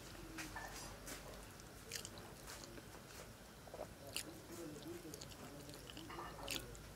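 Faint sounds of someone eating fish and flattened-rice pulao by hand: chewing and mouth smacks, with a few short sharp clicks scattered through and fingers working the food on a clay plate.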